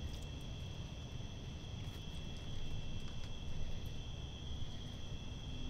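Night insects trilling steadily on several high pitches over a low background rumble, with a few light clicks in the first three seconds from a raccoon feeding out of a plastic tub of kibble.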